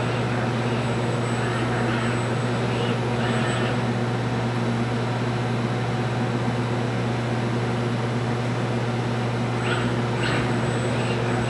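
Steady low machine hum with a constant hiss from a robotic paint spray booth, unchanging throughout, with a few faint short hisses rising above it now and then.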